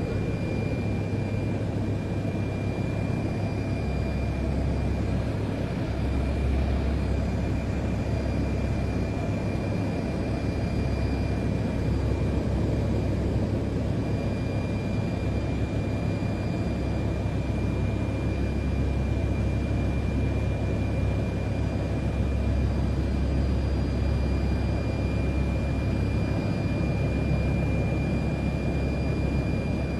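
Steady low rumble with a faint, constant high-pitched whine above it that drops out briefly a couple of times.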